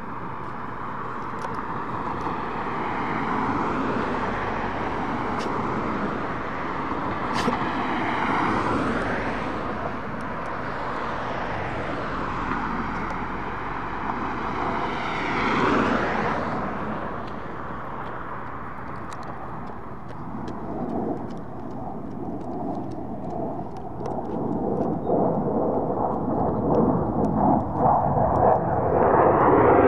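Jet noise from two EA-18G Growlers flying past overhead, each powered by twin General Electric F414 turbofans. The tone sweeps up and down as the jets pass, and the noise grows much louder near the end as they close in.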